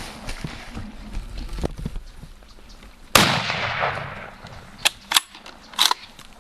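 A single rifle shot about three seconds in, its report rolling away over about a second, followed by a few short, sharp clicks.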